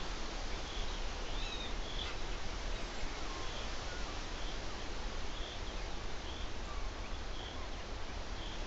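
Faint songbird calls, short high chirps repeated about once a second with a few softer gliding notes, over a steady background hiss and low rumble.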